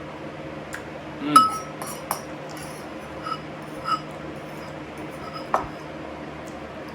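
Cutlery clinking against dishes during a meal: five or six sharp, ringing clinks, the loudest about a second and a half in, over a steady low hum.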